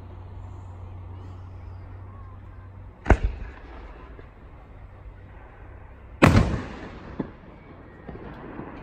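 Fireworks shells bursting: two sharp booms about three seconds apart, each trailing off in a short echo, with a smaller crack just after the second.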